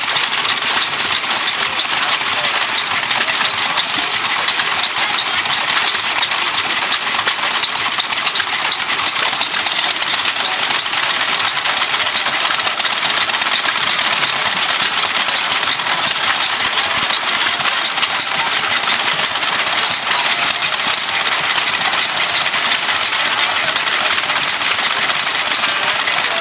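Antique horizontal hit-and-miss stationary engine running, its twin flywheels spinning: a steady mechanical clatter with many rapid clicks.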